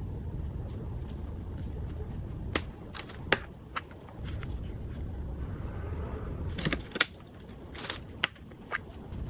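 Packaging and small items being handled: scattered sharp clicks and crinkles over a low steady rumble.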